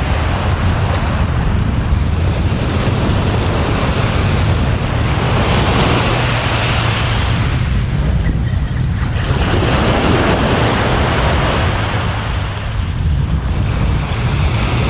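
Small waves breaking and washing up a sandy beach, the surf swelling and easing every few seconds, with wind buffeting the microphone as a low rumble underneath.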